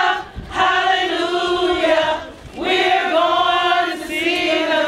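A group of voices singing together in long held phrases, with short breaks between them.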